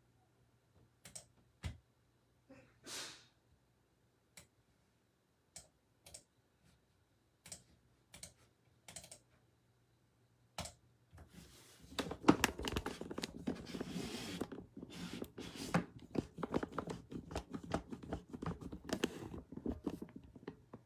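Scattered single clicks of a computer keyboard and mouse, then fast continuous typing on the keyboard from about halfway through.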